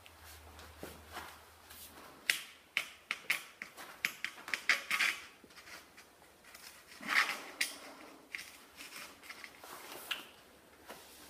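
Handling noise from a gloved hand bending a heated 1-inch PVC pipe over a trouser leg: a run of sharp clicks and short rustles, thickest between about two and five seconds in, then a few scattered rubbing sounds.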